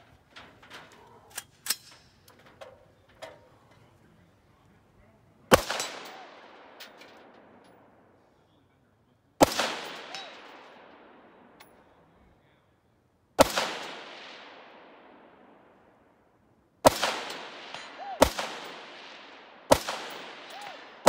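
A few light knocks, then AR-15 rifle shots in 5.56: seven in all, the first three about four seconds apart and the rest quicker, about a second and a half apart, each followed by a long fading echo.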